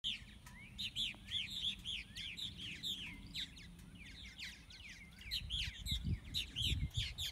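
Purple martins calling around their gourd colony: many quick, overlapping chirps and arching notes, continuous and busy, with some low rumbling near the end.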